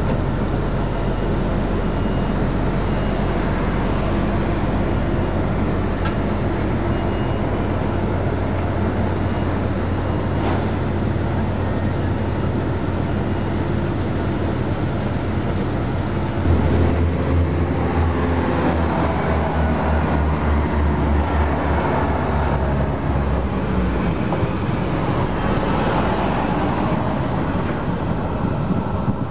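Diesel engines of a Bombardier Itino railcar idling with a steady low drone, then throttling up about two-thirds of the way in as the train pulls away, with a high falling whine over the next few seconds.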